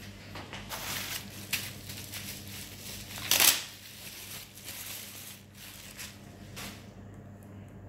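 Packaging being handled and crinkled: a run of rustling, crackling noises, loudest about three and a half seconds in.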